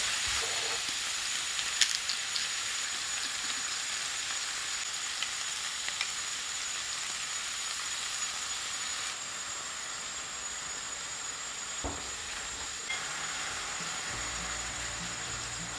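Bacon and vegetables sizzling in a non-stick frying pan, with a few sharp clicks of a wooden spatula against the pan.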